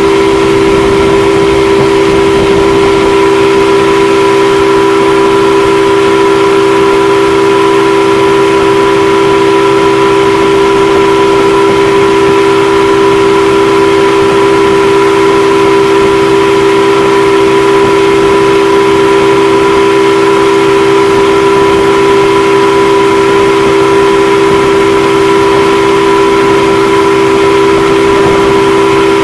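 Motorboat engine running loud and steady at constant throttle while towing, holding one unchanging pitch, over an even rush of churning wake water.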